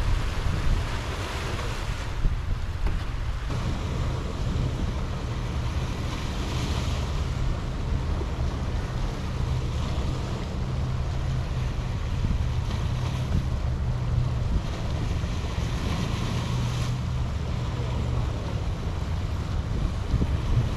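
Small sea waves washing over a rocky shore, the surf swelling now and then, with wind rumbling on the microphone underneath.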